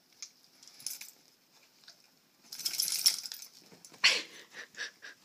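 Pomeranian moving about: a brief jingling rattle about two and a half seconds in, then a short sound falling in pitch, among light clicks.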